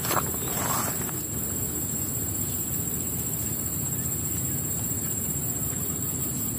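A couple of short splashy sounds about the first second as hands work in shallow canal water while setting a fishing net, then a steady outdoor background with a constant high-pitched insect drone.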